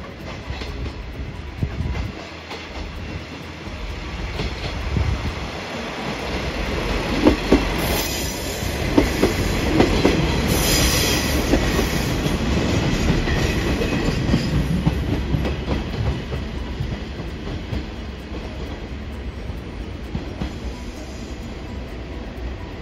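A train running past on the rails, its sound building to a peak in the middle and then fading, with a few sharp clacks of wheels over rail joints near the loudest part.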